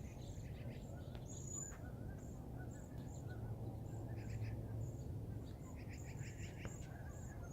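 A flock of small birds chirping faintly, short high notes repeated in scattered clusters, over a low steady hum.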